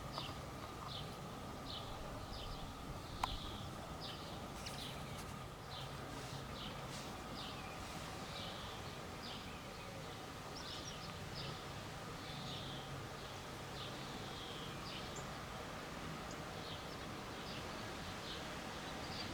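Birds singing: a steady run of short, high chirps, about two a second, over a steady low background hum. One sharp click about three seconds in.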